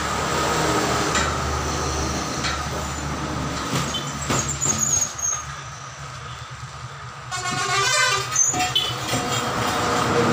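Road traffic passing, with a vehicle horn sounding for about a second, seven seconds in. A few light knocks come from work around it.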